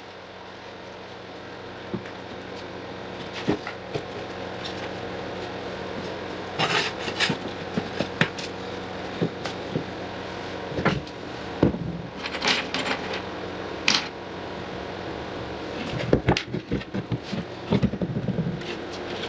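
Scattered clicks, knocks and rubbing or scraping of hand work with tools and building materials, over a steady fan hum.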